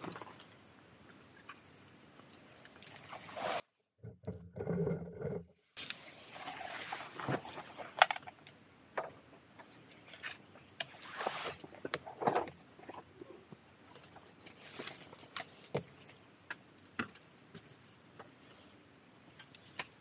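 Wood fire in a metal fire pit crackling, with irregular sharp pops over a soft hiss of flames and one louder pop about eight seconds in. Around four seconds in the sound drops almost to silence for about two seconds.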